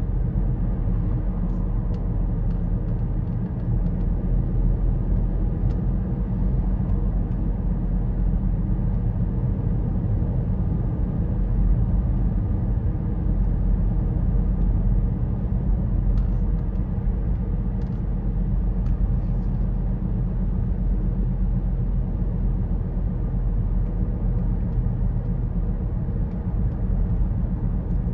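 Steady low road rumble of tyres and engine heard from inside a moving car's cabin, at an even level throughout.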